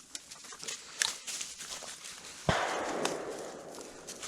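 Footsteps and a dog moving through dry leaves and brush, a steady run of small crunches and snaps. About two and a half seconds in, a sudden louder noise that fades over a second or so.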